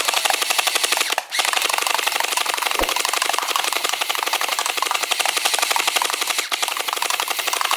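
Rapid automatic gunfire: a continuous fast rattle of shots, more than ten a second, breaking off briefly about a second in and again past the six-second mark.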